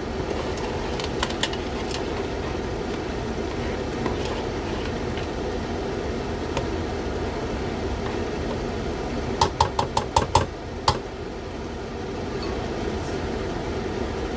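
Kitchen extractor fan running steadily over the cooker. About nine and a half seconds in there is a quick run of about seven sharp taps, a stirring spoon knocked against the pot.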